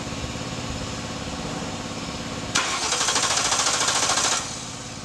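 2007 Mercury Grand Marquis engine being cranked over by its starter without catching, with a steady low rhythm and a louder hissing, rattling stretch of about two seconds past the middle. It is a crank-no-start: no fuel is reaching the engine because the fuel pump is not delivering.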